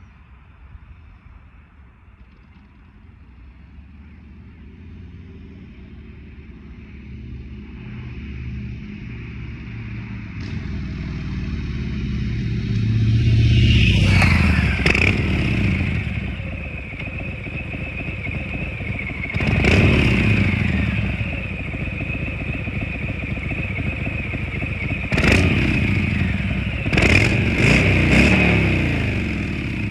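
Harley-Davidson Sport Glide's Milwaukee-Eight 107 V-twin, breathing through a Thorcat Mad Max X-Torque exhaust, rumbling low and growing steadily louder over the first dozen seconds. It is then revved in throttle blips about halfway through, at twenty seconds, and twice near the end, dropping back to a lumpy idle between them.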